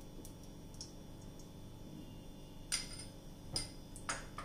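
Steel spoon clicking against a non-stick kadhai while ghee is scraped off into the pan: three sharp clicks near the end, about half a second to a second apart.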